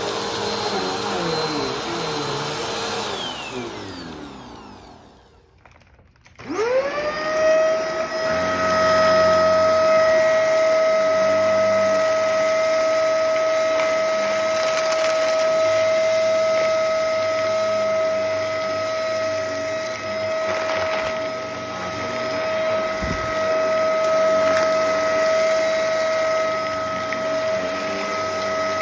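Vacuum cleaner motor running, then switched off about three seconds in, its whine falling in pitch as it winds down to near silence. It is switched back on about six seconds in, the whine rising quickly to a steady high pitch and running on.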